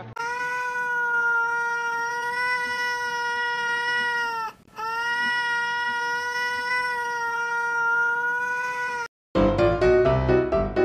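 A cat's two long, drawn-out meows, each held at a steady pitch for about four seconds with a brief break between. Piano music starts near the end.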